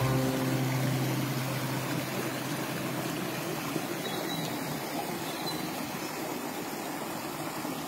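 Water pouring over a low stone weir into a shallow river pool: a steady rushing splash. A low, steady hum is also heard and fades out after about two seconds.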